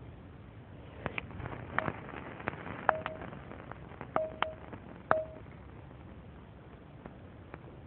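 A run of sharp clicks over about four seconds, several of them followed by a brief ringing tone at one pitch.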